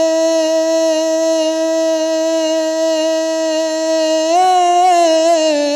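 A man singing a naat unaccompanied, holding one long sung note, which about four seconds in breaks into a wavering melodic ornament.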